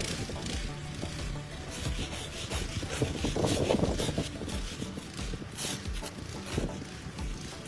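Repeated scraping strokes of snow being cleared, loudest about three to four seconds in, over background music.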